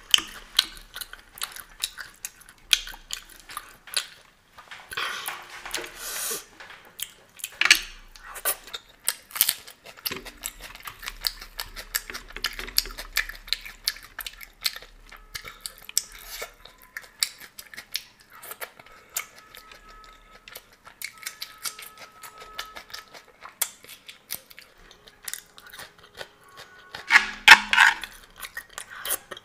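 Close-miked eating with no talk: wet chewing and mouth smacks as fingers mash dal kachori into soft ghugni, with now and then a metal spoon clinking against the metal plate. A louder cluster of eating noises comes near the end.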